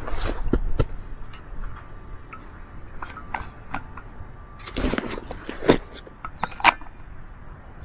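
Scattered clicks, knocks and rustles of small objects being handled, busiest around five to seven seconds in. Two short high bird chirps, about three seconds in and near the end.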